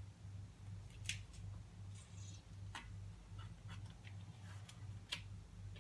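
Induction cooktop humming faintly in a steady on-off pulse, about two and a half beats a second, as at a low power setting. A few light clicks from handling at the pan come over it.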